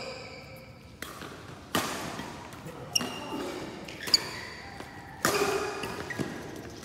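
A badminton rally: sharp racket hits on the shuttlecock about once a second, the loudest echoing briefly in the hall, with brief shoe squeaks on the court floor.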